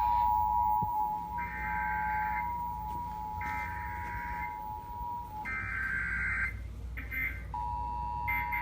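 Emergency Alert System tones: the steady two-tone attention signal, which breaks off about five seconds in and comes back near the end, with three roughly one-second bursts of buzzy SAME digital header data sounding over it, about two seconds apart.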